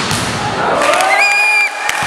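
Referee's whistle blown once for about a second, ending a volleyball rally, with shouting in the hall and a short thud near the end.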